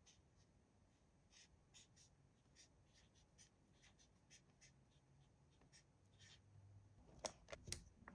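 Marker pen scratching on paper in short strokes as letters are written, faint. A few louder sharp clicks and taps come near the end.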